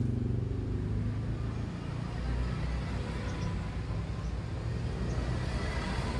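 A vehicle engine runs steadily with a low rumble. It cannot be this engine, whose distributor is out of the block being fitted.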